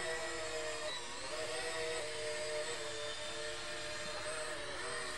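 Electric motors and propellers of a toy RC fighter jet whining steadily in flight, with the pitch dipping briefly about a second in and again near the end.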